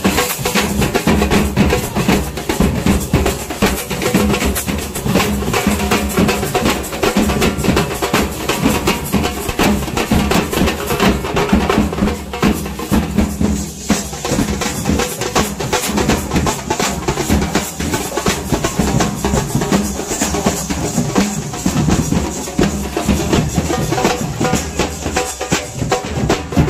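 Loud, continuous drumming, a dense stream of rapid drum strikes with no break.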